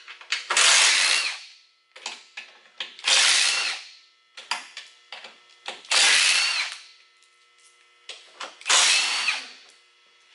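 Cordless power drill/driver run in four short bursts of under a second each, spaced two to three seconds apart, with small clicks and rattles between them: backing out screws.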